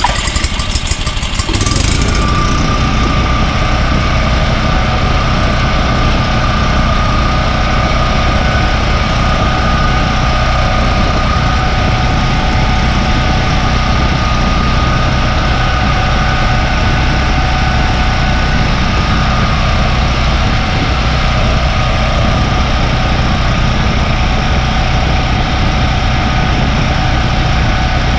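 Portable generator's small engine running steadily just after starting: a clattery start-up that settles about two seconds in into a loud, even run at constant speed.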